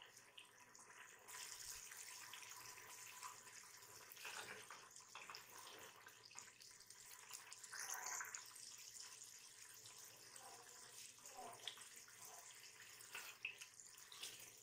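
Mutton curry bubbling and sizzling faintly in an open pressure cooker over a high gas flame as its water cooks off. A few spatula stirs near the end.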